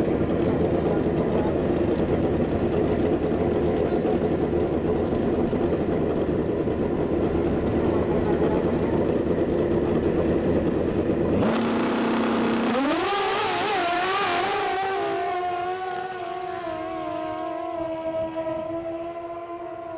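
Two drag-racing motorcycles running loudly at the start line, then launching about eleven seconds in: a sudden blast of engine noise whose pitch climbs in steps. The sound then fades steadily as the bikes pull away down the strip.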